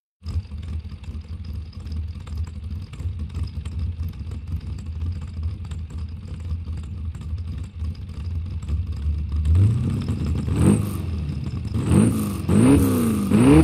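Engine sound opening a psy-trance track: a steady low engine rumble, then from about ten seconds in the engine revs, its pitch rising and falling several times.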